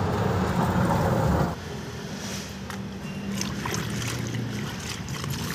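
A steady low rumble that cuts off sharply about one and a half seconds in, followed by quieter background hum with a few light clicks of a plastic fuel filter bowl being handled.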